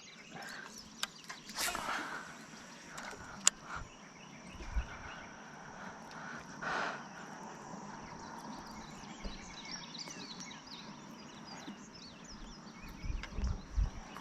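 Outdoor ambience with many small bird chirps over a steady high-pitched buzz. A sharp click comes about three and a half seconds in, and a few low bumps near the end.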